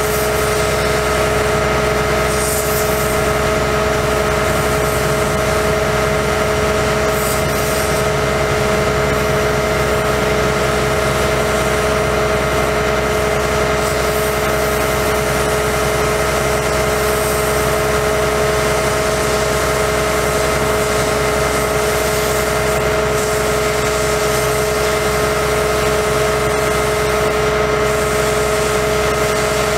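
Bucket truck's Cummins ISC diesel engine running steadily, with a constant whine above it, while the hydraulic aerial boom is being operated.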